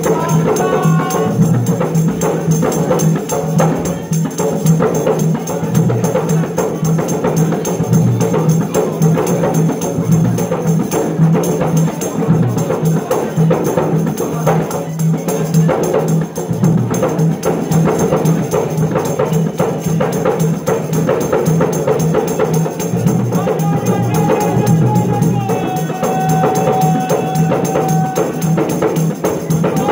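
Several large hand-held frame drums beaten in a fast, steady rhythm, with long held sung notes joining in for a few seconds near the end.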